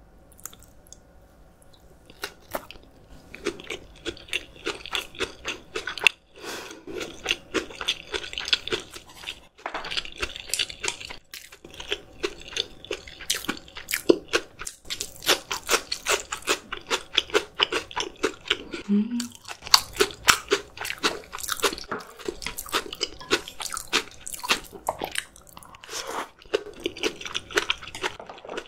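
Close-miked eating: rapid crunchy chewing and wet mouth sounds of someone eating spicy steamed monkfish, starting about two seconds in and running densely on, with a brief low hum about two-thirds of the way through.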